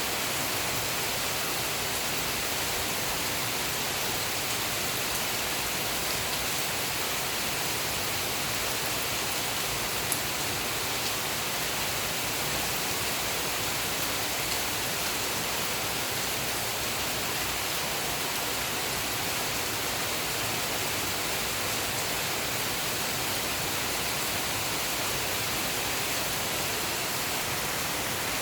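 Heavy rain falling steadily, an even hiss with no thunder, and a single brief tick about ten seconds in.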